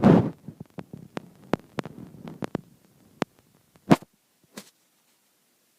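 A sleeper's snore ends in a loud snort right at the start. A run of sharp clicks and crackles follows for about two and a half seconds, then a few single clicks, the loudest about four seconds in, and then quiet.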